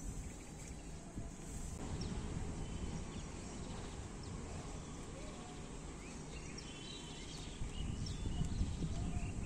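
Outdoor background noise, a low steady rumble, with faint bird chirps about two seconds in and again near the end.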